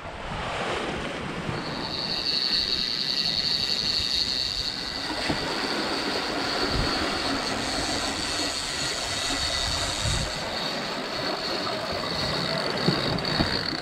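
Fishing reel being cranked to bring in a trolling line, a steady high whine that starts about two seconds in and stops just before the end, over the rush of the boat's wake and wind.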